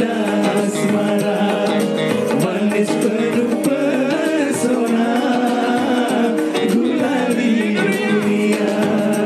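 Pop song played by a band, with a singing voice over the instruments.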